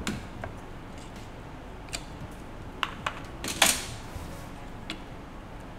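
A few scattered light clicks and taps of small tools and test clips being handled on a workbench, with one louder, brief scrape or rustle about three and a half seconds in.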